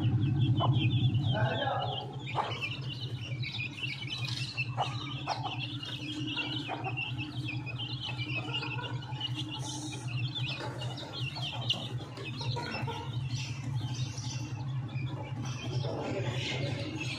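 A brood of chicks peeping continuously in quick, high-pitched chirps, over a steady low hum.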